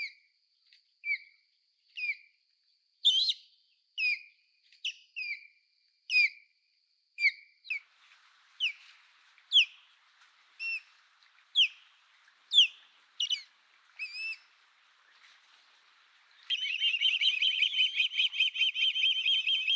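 Osprey calling: a series of short, high, downslurred whistled notes about one a second, then, in the last few seconds, a rapid unbroken run of whistled notes.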